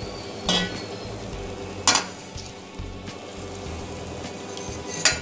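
Hot water poured from a glass into a steel pot of ghee-fried rice, with three sharp metallic clinks against the pot, the loudest about two seconds in.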